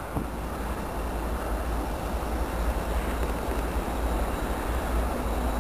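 Diesel freight locomotive approaching, a low steady engine rumble that grows slowly louder.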